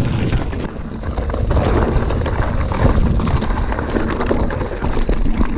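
Wind buffeting the microphone over the noise of a Giant Fathom 29 mountain bike riding fast over rough dirt trail, its tyres, chain and frame giving many short clicks and knocks.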